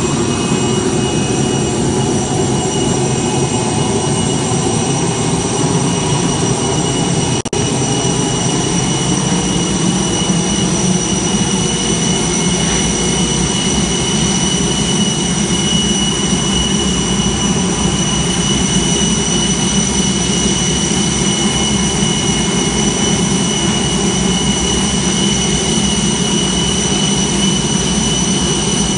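Steady jet-turbine whine and rumble around a parked Boeing 747-400, with high steady whistling tones over the noise. The sound drops out for an instant about seven and a half seconds in.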